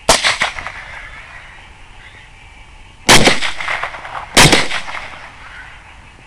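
Three rifle shots: one right at the start, then two more about a second and a half apart, around three and four and a half seconds in, each trailing off in a rolling echo.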